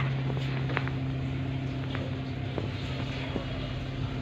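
A steady low machine hum runs throughout. Over it come a few small sharp clicks, spaced irregularly, as an Alexandrine parakeet bites at a green stalk.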